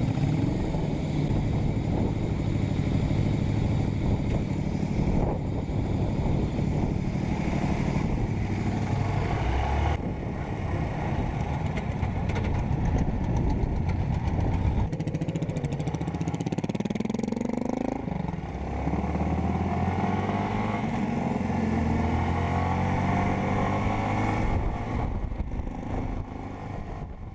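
Cruiser motorcycle engine pulling away and running at highway speed, with wind rush. Its pitch climbs as it accelerates and drops at each gear change. The sound fades out near the end.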